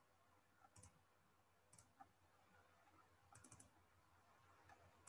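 Faint computer mouse clicks: a few single clicks scattered through, and a quick run of three or four clicks about three and a half seconds in.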